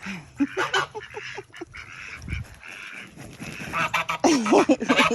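Goose honking: a run of short calls at first, then louder drawn-out honks near the end.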